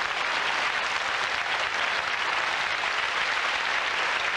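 A large audience in a packed hall applauding, steady dense clapping.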